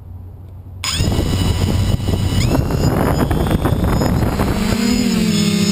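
FPV quadcopter's electric motors and propellers spin up suddenly about a second in, to a loud whirring with a whine that rises slowly as it lifts off, heard through the camera on the craft. Near the end a steady low hum with overtones sets in.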